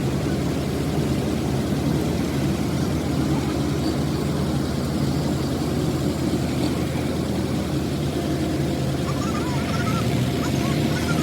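Truck engine running steadily, an even low drone that does not rise or fall.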